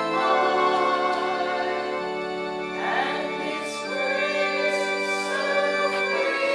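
Congregation singing a hymn together in held, slow notes that change pitch every second or two.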